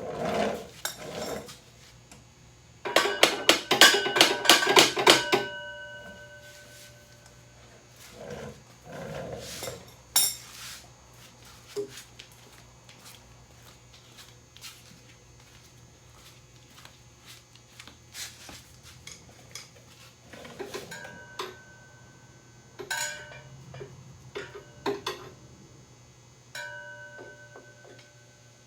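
Metal hand tools clinking and clattering against metal parts, with a dense run of rapid metallic clicks about three seconds in and a few ringing clinks near the end.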